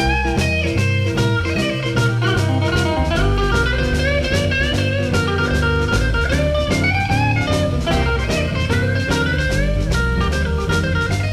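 Blues band playing: electric guitar with bent notes over bass and a steady drum-kit beat.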